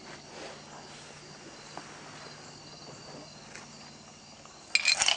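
Low background noise, then near the end a quick clatter of sharp clicks, like small metal carburetor parts being knocked together or set down on a hard bench.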